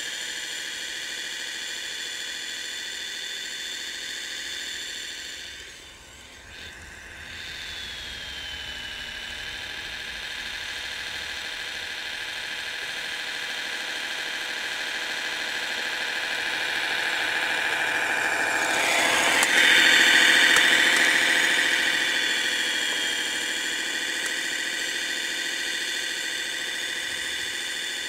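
Radio-controlled Kyosho Blizzard snowcat model running: a high mechanical whine from its electric drive and tracks, mixed with the synthetic engine sound of its Servonaut sound module, the whine wavering up and down in pitch. It dips briefly about six seconds in, then grows louder to a peak near twenty seconds before easing off.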